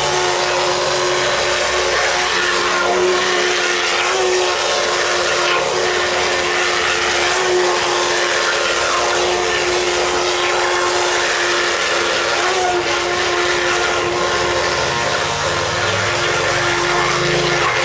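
Small electric motor of a radio-controlled toy boat running steadily, a high-pitched whine that holds one pitch over a constant hiss.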